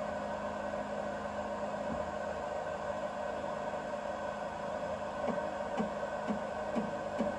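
BIBO Touch X 3D printer printing: a steady hum of its fans and electronics, and from about five seconds in, short chirps of the stepper motors moving the print head, about two a second. The owner hears something wrong in it, which he puts down to a leveling problem with one of the two extruders.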